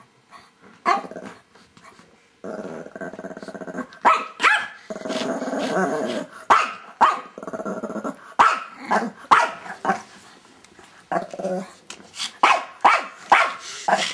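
Two small dogs squabbling over a toy. A drawn-out growl comes about two seconds in, then another, broken by sharp barks. Near the end the barks come quickly, about two a second.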